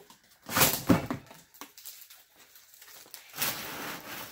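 Cardboard shipping box being opened and its packing handled: a loud burst of scraping and rustling around the first second, then a longer rustling scrape near the end.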